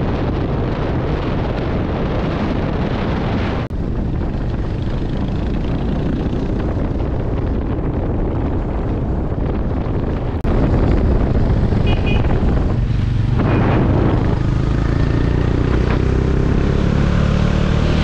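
Motorcycles riding on the road, engine noise mixed with heavy wind rush on an action camera's microphone. The sound changes abruptly about four and ten seconds in, where the footage cuts between clips.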